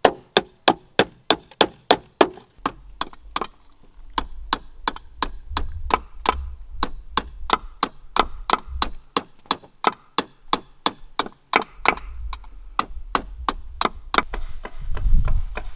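Large knife chopping and splitting bamboo against a wooden block, a steady run of sharp wooden strikes about four a second, with a low rumble underneath from about two and a half seconds in.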